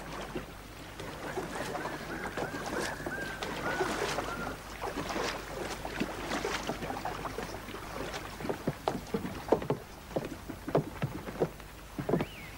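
Scene around a wooden sailing ship at anchor with canoes alongside. A long wavering whistle is heard from about a second in, then a run of short, irregular knocks and clatters.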